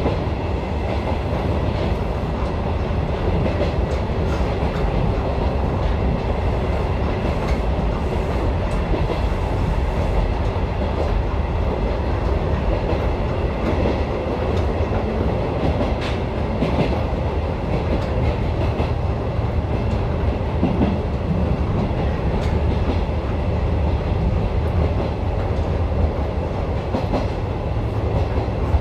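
Electric commuter train running at speed on single track, heard from inside the front cab: a steady rumble of wheels on rail with occasional faint clicks.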